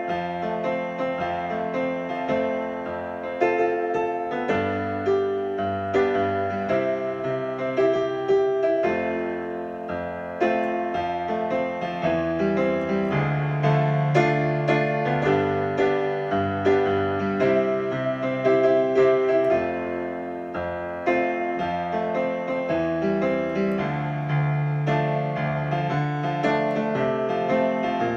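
Digital piano played solo with a piano voice: sustained chords under a melody line, with held bass notes.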